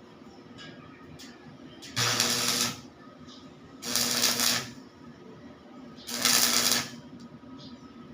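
Electric arc welding in three short bursts, each under a second and about two seconds apart: a loud hiss with a steady hum under it.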